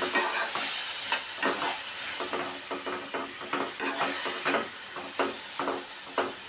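Grated ash gourd sizzling in ghee in a non-stick kadai, with a spoon stirring and scraping through it in a dozen or so quick, irregular strokes over a steady frying hiss.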